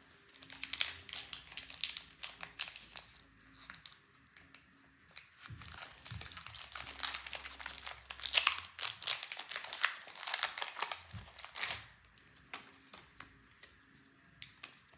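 Foil Pokémon booster pack wrapper crinkling and tearing as it is opened, in repeated crackly bursts that stop about twelve seconds in.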